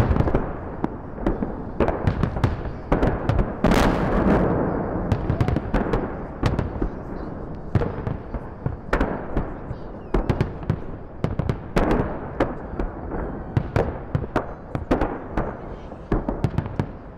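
Fireworks salute: shell bursts banging and crackling in quick succession, densest and loudest about four seconds in.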